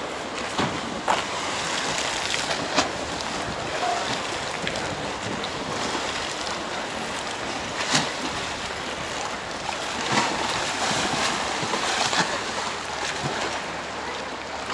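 Wind-driven choppy sea washing over a concrete quay and slapping against wooden jetties, a steady rush of waves and wind with sharp splashes every few seconds, the loudest about eight seconds in.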